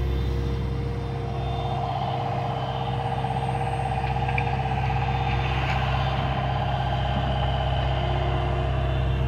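John Deere 50G compact excavator's diesel engine running steadily while the machine works. A higher steady whine from the hydraulics comes in about a second and a half in, as the house swings and the boom and bucket move, and holds until near the end.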